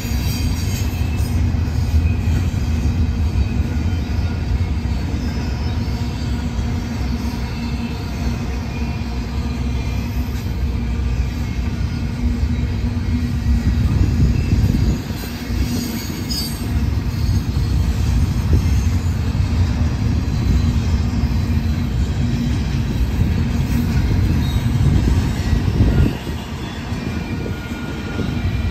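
Double-stack intermodal freight cars rolling past: a steady low rumble of steel wheels on rail, with thin high-pitched wheel squeals over it. The rumble dips briefly twice.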